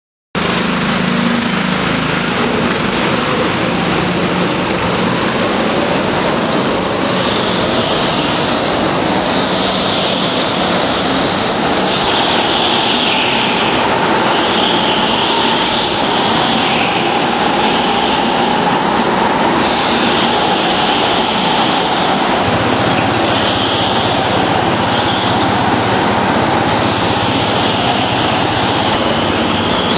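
Go-karts lapping an indoor track: a loud, continuous motor noise whose pitch keeps rising and falling as they speed up and slow for the corners, heard inside a low concrete hall.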